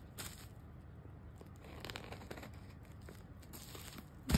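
Faint tearing and crinkling of the packaging seal on a phone box being opened, in soft scattered strokes, with one sharp knock near the end.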